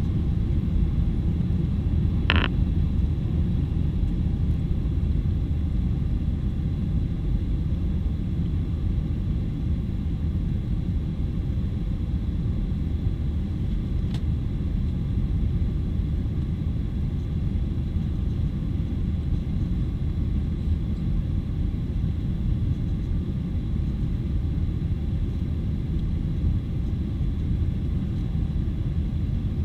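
Steady low rumble of a Boeing 737-800's CFM56-7B turbofan engines and airflow, heard inside the cabin while the airliner climbs after takeoff. A short sharp click about two seconds in.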